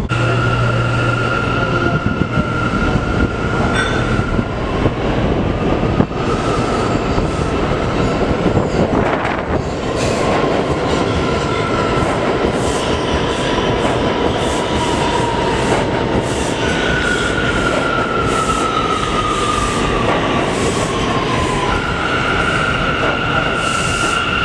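New York City Subway train pulling into the station alongside the platform, with a steady high-pitched wheel squeal over the rumble and quick clicks of wheels over rail joints. Past the middle a whine falls slowly in pitch as the train slows, then the high squeal returns near the end.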